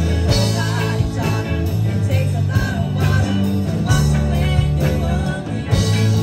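Live rock band playing a song: electric guitars, bass and drums, with a wavering lead melody line over them.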